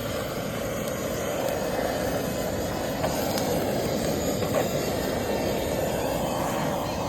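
Campfire burning: a steady rushing noise with a few sharp pops.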